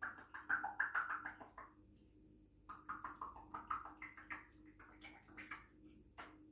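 African grey parrot chattering in two runs of quick, choppy mumbling, with one short sharp sound near the end.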